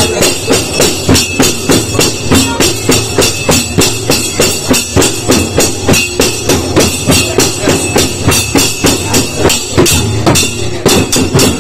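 Goan ghumot clay pot drums played by hand together with small brass hand cymbals (kansallem), keeping a steady beat of about three strokes a second.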